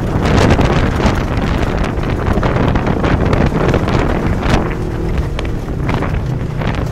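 Polaris RZR side-by-side driving along a bumpy dirt trail, its engine and drivetrain noise mixed with heavy wind buffeting on the open-cab microphone.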